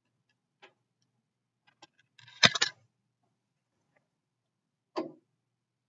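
Quiet pause in a room with a few faint clicks, one sharp knock about two and a half seconds in, and a softer, shorter knock about five seconds in.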